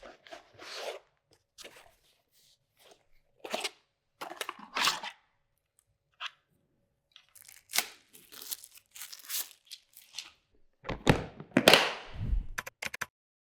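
Packaging being handled and opened: irregular bursts of rustling, crinkling and tearing. A louder cluster of crunching and handling thuds comes near the end.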